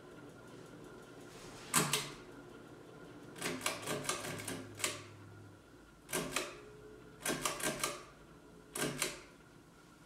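Pull-chain switches on a Hampton Bay Metarie II ceiling fan clicking as the chains are pulled, in several clusters of sharp clicks with chain rattle, over the fan's steady running hum.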